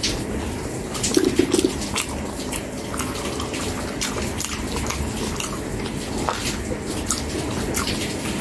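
Close-miked wet chewing and mouth sounds of someone eating, with frequent sharp clicks from a metal spoon scooping against the food bowls.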